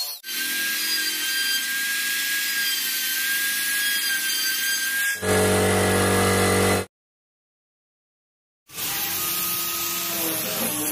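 Small electric router running with a high whine as it cuts grooves into a pine board, for about five seconds. Then a louder low buzz for about a second and a half, a cut to total silence, and near the end a small electric orbital sander running on the board.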